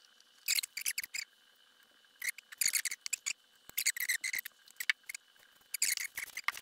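Handling noise from a subwoofer being moved about on a cardboard box: four short spells of quick, crisp scraping and crinkling rustles, with a faint steady high whine behind them.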